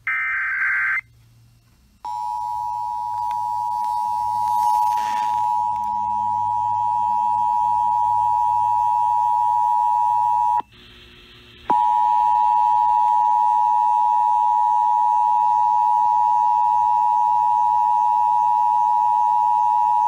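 Emergency Alert System test over an FM radio's speaker. It opens with a short warbling burst of digital header data, then after a brief pause comes the EAS attention signal: a loud, steady two-note tone just under 1 kHz. About halfway through the tone drops out for about a second of noise, then resumes.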